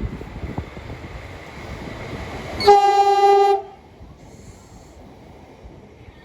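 Train rumbling on the tracks, then a loud single-note horn blast of about a second from a train, after which only a low rumble remains.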